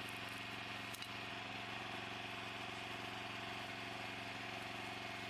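An engine idling steadily at an even speed, typical of the small engine that powers a hydraulic log splitter.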